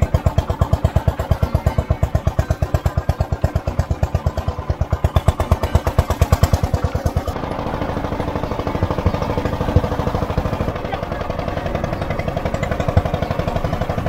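Small single-cylinder engine of a motorised three-wheeler running with a steady pulsing beat, about seven firing pulses a second, the pace picking up a little in the second half.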